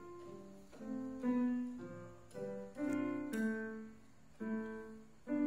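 Electronic keyboard played with a piano voice: about nine single notes and chords struck at uneven intervals of roughly half a second to a second, each ringing briefly and fading.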